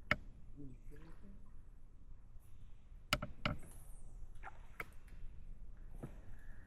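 A handful of sharp knocks and clicks from fishing gear handled on a kayak: one near the start, a quick cluster about three seconds in, and single ones near the end.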